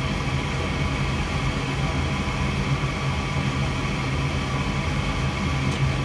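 Gas furnace's draft inducer fan running with a steady low hum during the startup sequence, while the hot surface igniter heats up before the gas valve opens.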